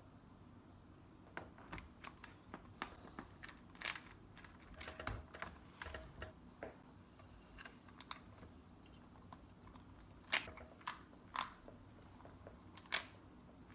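Plastic clips of a laptop screen bezel clicking into place as it is pressed on around the screen: a run of small quick clicks, then a few louder snaps later on.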